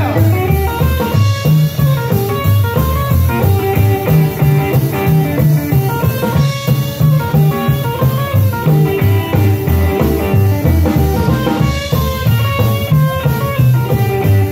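Rockabilly band playing an instrumental break: lead runs on a hollow-body electric guitar over upright double bass and a drum kit keeping a steady beat.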